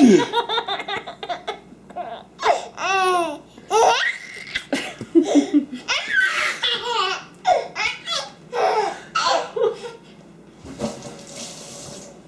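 A baby laughing hard in repeated fits of high, rising and falling squeals and giggles. A short hissing spray of water comes near the end.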